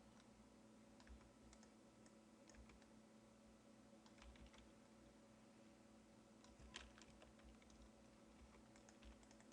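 Faint, scattered computer keyboard and mouse clicks over a low steady electrical hum, with one slightly louder click about seven seconds in.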